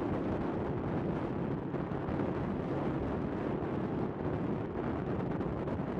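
Steady wind rush buffeting a helmet-mounted microphone on a moving motorcycle, over a low rumble of engine and road.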